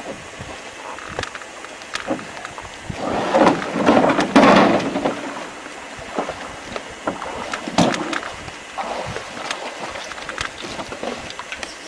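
Canoe paddling: paddle strokes splashing in the water and paddle knocks against the hull, with a louder rush of water noise about three to five seconds in.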